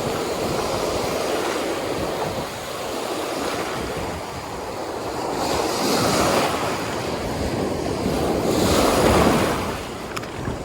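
Rough ocean surf breaking on the beach, with wind buffeting the microphone. The surf swells louder twice, about six seconds in and again about nine seconds in, the second time loudest.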